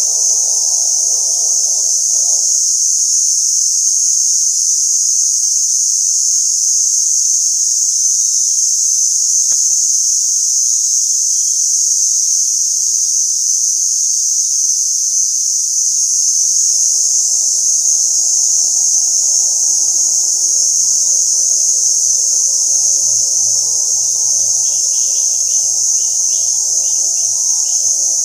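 Steady, high-pitched drone of forest insects shrilling without a break. Background music fades in about halfway through.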